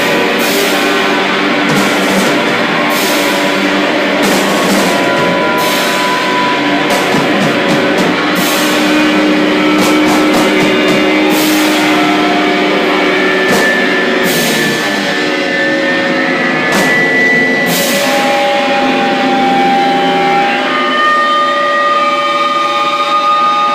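Live noise-rock band: loud distorted electric guitars over a drum kit, with repeated cymbal crashes. About eighteen seconds in the cymbals stop and a few long, steady high guitar feedback tones ring on.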